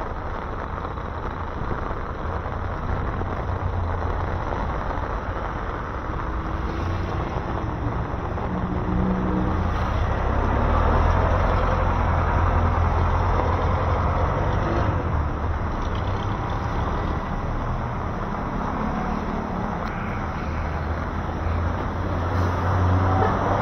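Road traffic passing on a wet road: car, jeepney and truck engines running, with tyres hissing on the wet pavement. It swells louder about halfway through and again near the end as heavier vehicles go by.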